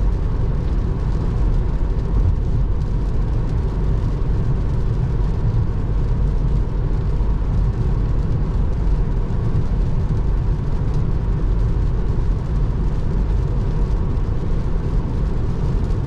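Steady tyre and road noise from a Tesla Model 3 driving at highway speed on a rain-soaked road, with rain and spray, heard from inside the cabin.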